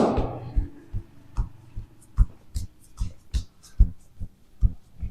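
Background music with a steady low thumping beat, about two and a half thumps a second, with a few short high ticks over it. A loud burst just before the start fades away over the first second.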